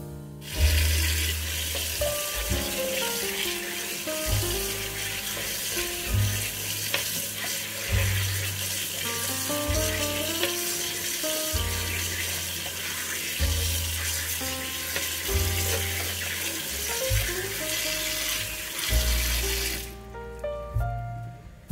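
Kitchen tap water running steadily into a metal mesh strainer of raw potato sticks in a sink, as hands rub them clean. It starts about half a second in and stops shortly before the end, over background music with a bass line and a melody.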